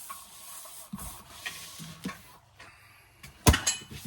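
Small clicks and light knocks of hands handling control cables and their fittings, with one sharp, loud knock about three and a half seconds in.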